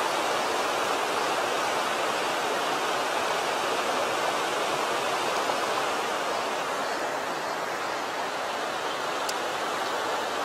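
Mountain stream rushing over a small rocky cascade: a steady, even wash of water.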